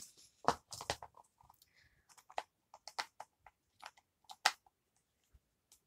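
Small plastic toy parts clicking and tapping as they are packed into an L.O.L. Surprise plastic ball and its two halves are pressed together, a dozen or so separate sharp clicks.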